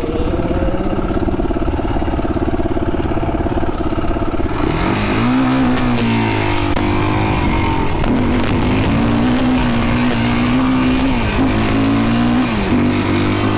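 A stock Yamaha YFZ sport quad's single-cylinder four-stroke engine running steadily for the first few seconds, then revving up and down repeatedly as it is ridden.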